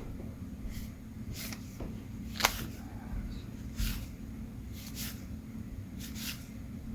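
Baseball trading cards being handled and flipped through, making short papery swishes about once a second, with one sharp card snap about two and a half seconds in, over a steady low hum.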